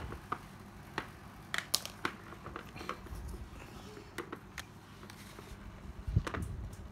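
Light clicks and knocks from handling a cordless drill, scattered irregularly, with the loudest knock about six seconds in; the motor is not running.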